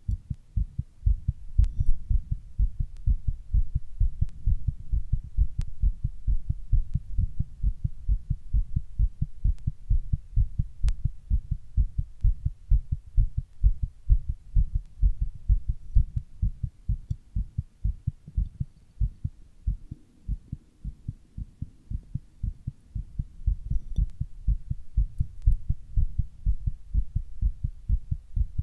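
A human heartbeat beating fast and evenly as a steady run of low thumps, growing a little softer for a few seconds midway before coming back up.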